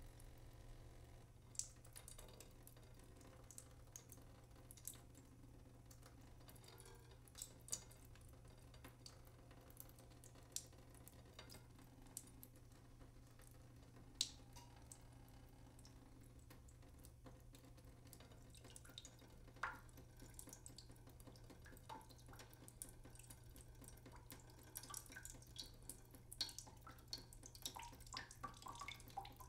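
Water dripping from a leaking sink: single drops every second or two, some with a short ringing plink, coming faster and closer together near the end. A faint low hum runs underneath.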